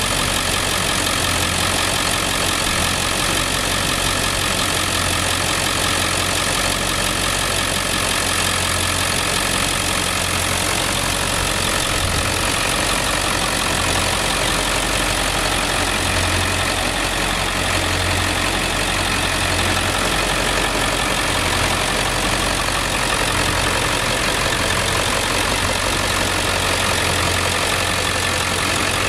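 Ford F-450 Super Duty's 7.3-litre Power Stroke turbo-diesel V8 idling steadily.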